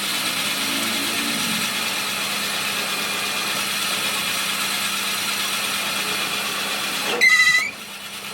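A workshop machine running with a steady noise and a low hum. About seven seconds in a brief, loud, high-pitched squeal sounds, and then the machine noise drops away.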